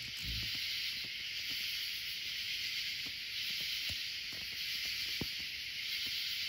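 Steady high-pitched chorus of night insects, an even hiss with no pulses in it, with a few faint ticks over it.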